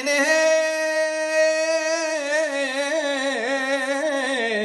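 One voice chanting Torah cantillation in the Yerushalmi tradition, drawing out a single long melismatic note with no clear words. The note is held steady for about two seconds, then breaks into quick wavering ornaments.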